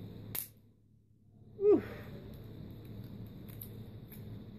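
A man lets out one short sigh that falls in pitch, about a second and a half in: exasperation at the slow job of peeling off layer after layer of packing tape. A sharp click comes just before it, and faint clicks of handling come after.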